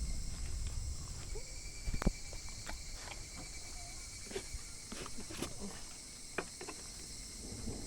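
Steady high-pitched insect chorus, with scattered small clicks and taps over it.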